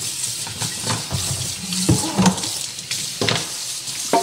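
Pull-down kitchen faucet running into a stainless steel sink while a dish brush scrubs, with a few sharp clunks against the sink.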